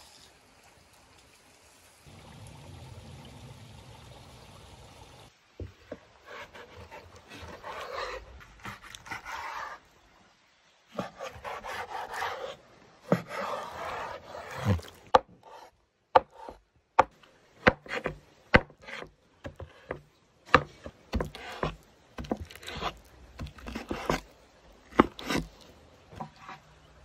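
Raw beef liver being handled and cut on a wooden cutting board: wet rubbing and squishing at first, then from about halfway a run of sharp knife knocks on the board as the liver is chopped into cubes.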